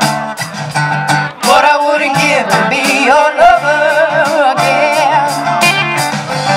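Live band performance: electric and acoustic guitars strumming, with a woman's sung vocal coming in about a second and a half in.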